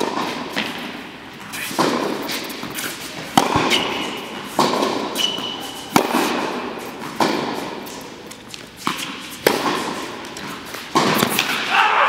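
Tennis rally on an indoor hard court: sharp racket-on-ball strikes from a polyester-strung Angell TC95 and the ball bouncing on the court, about one impact every second, each followed by echo from the hall.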